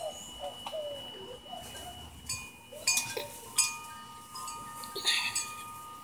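Wind chimes ringing in the breeze: a few struck notes from about two seconds in, each ringing on at its own pitch.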